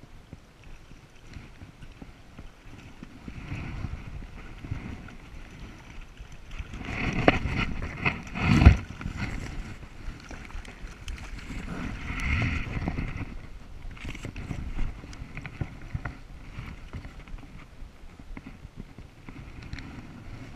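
Water splashing as a hooked brown trout thrashes at the surface and is scooped into a landing net, with a burst of splashes about seven to nine seconds in and another around twelve seconds in. Wind on the microphone throughout.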